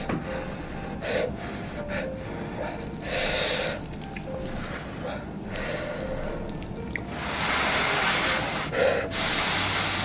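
Close-miked eating sounds: noisy breaths through the nose between bites, with chopsticks stirring sticky sauced jjapaghetti noodles. The longest and loudest rush comes about seven seconds in and lasts over a second.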